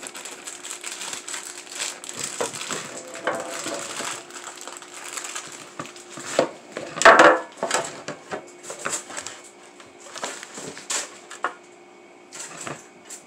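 A plastic zip-top bag of chopped walnuts crinkling and rustling as it is handled, with scattered clicks and knocks from kitchen items on the table; the loudest burst comes about seven seconds in.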